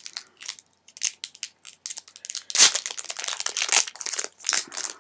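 Foil Pokémon booster pack wrapper crinkling as it is handled, a fast run of sharp crackles that is loudest about two and a half seconds in.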